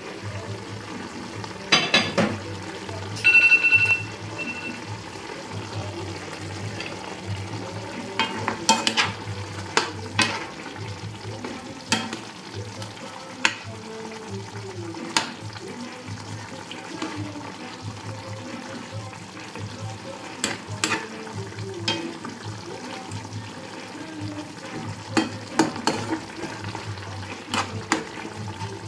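A spoon stirring chicken curry in a cooking pan, with scattered clicks and scrapes against the pan over a low sizzle. A brief high-pitched ring sounds about three seconds in.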